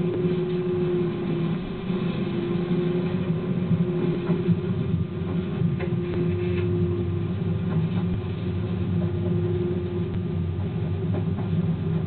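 Moving train heard from the driver's cab: a steady rumble of the locomotive and wheels on the rails, with a humming tone that fades in and out and a few faint clicks.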